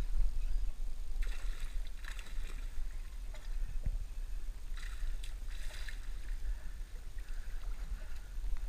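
Wind rumble on the microphone and water lapping against a small boat's hull, with a few short splashes at the surface about one, two and five seconds in.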